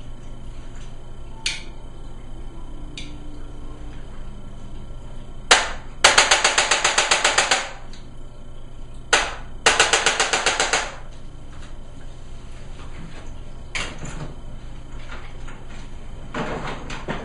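Chiropractic adjusting equipment clicking: a few single sharp clicks, and twice a sharp click followed by a fast, even run of repeated clicks lasting a second or two.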